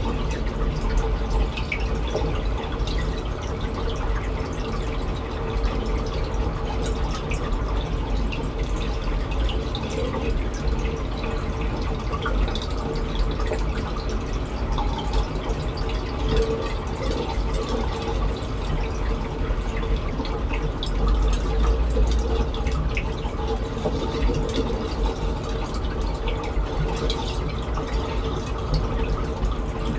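Reef aquarium water trickling and dripping steadily over a low, steady hum.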